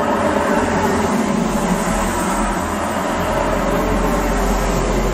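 Road traffic driving past, with tyre hiss and a low engine rumble. The hiss is loudest about two seconds in, and the deep rumble grows stronger in the second half.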